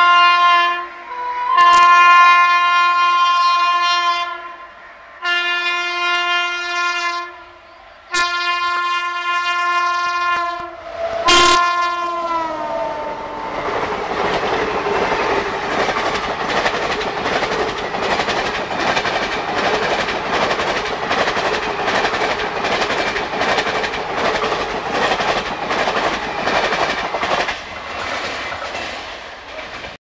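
WAP-7 electric locomotive sounding its air horn in a string of long blasts as it approaches at speed; the last short blast drops in pitch as the locomotive passes. The express coaches then rush by with a steady rhythmic clickety-clack of wheels over the rail joints.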